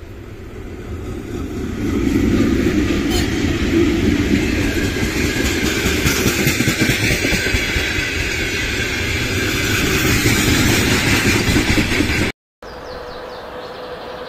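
An electric train passing close by, its wheels and running gear making a loud, dense rumble that swells over the first two seconds and holds; near the end an abrupt cut leaves a quieter, steady sound.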